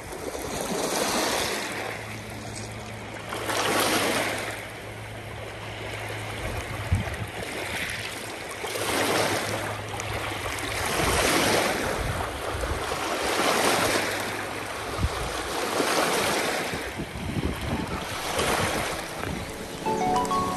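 Lake waves washing in, in repeated swells every two to three seconds.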